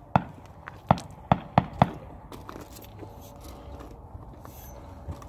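Sharp clicks and knocks from handling the AEA Challenger .357 air rifle while working its stiff cocking lever: five quick clacks in the first two seconds, then a few fainter ticks.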